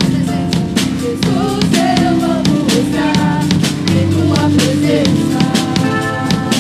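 Live Christian worship band: a woman singing lead into a microphone over drum kit and guitars.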